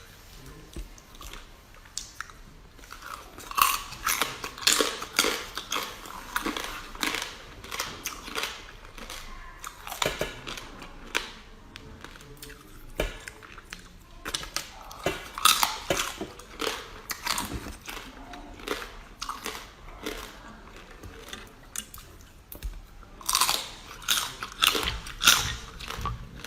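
Close-miked chewing and crunching of food: bouts of quick, crisp bites and chews with quieter pauses between them.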